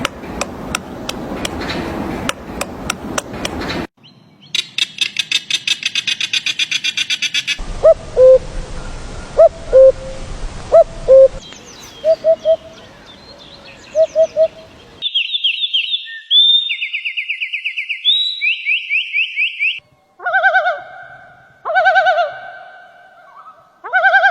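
A run of different bird calls, changing abruptly every few seconds. It starts with a noisy stretch with quick clicks, then comes a fast high rattling trill. Next are low hooting notes repeated several times, then loud high trilled phrases, and last a call repeated over and over.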